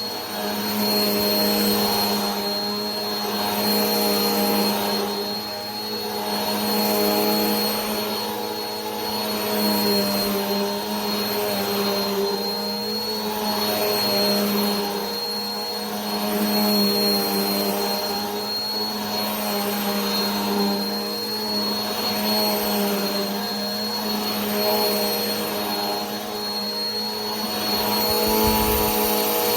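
Vacuum cleaner running continuously: a steady motor hum with a high whine and rushing air, swelling and easing in loudness about every two seconds.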